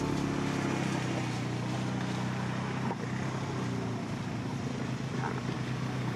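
ATV riding past, its engine running with a steady low hum.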